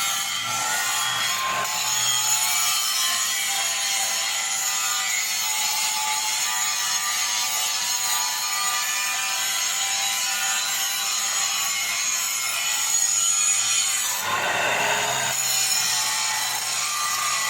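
Angle grinder grinding steel pipe fittings, a continuous high whine with gritty hiss. About fourteen seconds in the pitch briefly drops and recovers as the disc is pressed harder into the metal.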